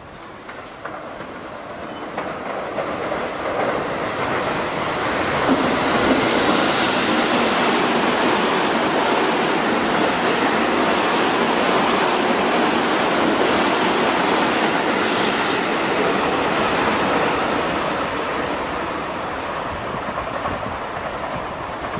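Seibu 30000 series electric train running through the station without stopping. It grows louder over the first few seconds, stays loud through the middle as the cars pass, and fades over the last few seconds.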